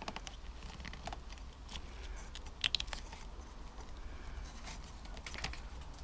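Small clicks and rustles of hands working among motorcycle wiring and plastic connector blocks inside a headlight shell, with a sharper double click about two and a half seconds in.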